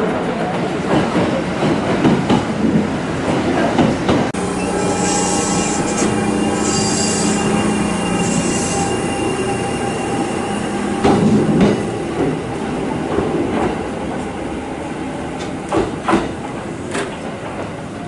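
Kintetsu electric train running on the rails, its wheels squealing in steady held tones from about four seconds in, over the rumble of the train.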